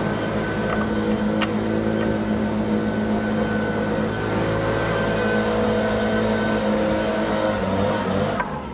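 A motor running steadily at a constant pitch, cutting off abruptly near the end, with one short click about a second and a half in.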